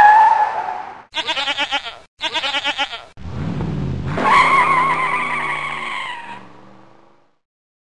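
Cartoon sound effects: two wavering goat bleats, then a vehicle revving and a long tyre squeal that fades out.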